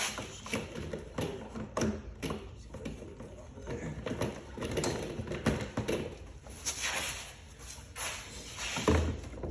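Hand tools and engine-bay parts clicking and knocking as they are handled and fitted back on, in an irregular run of sharp taps, with a heavier thump about nine seconds in.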